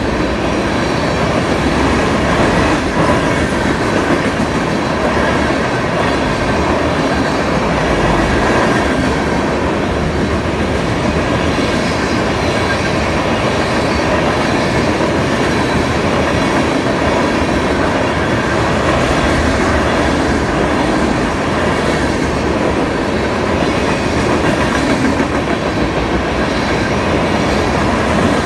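Freight train cars rolling past close by: steel wheels on rail making a loud, steady rolling noise that holds evenly throughout.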